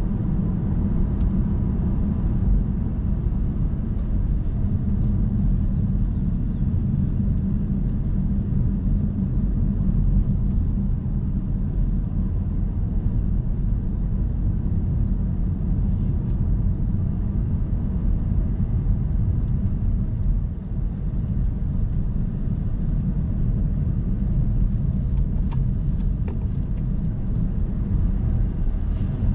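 Car driving at a steady pace: a steady low rumble of engine and road noise, with a few faint ticks in the later part.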